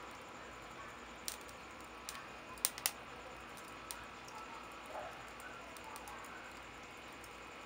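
Wooden kindling sticks burning over lump charcoal in a grill, giving a few sparse sharp crackles over a faint steady hiss, the loudest a pair of pops close together near the middle.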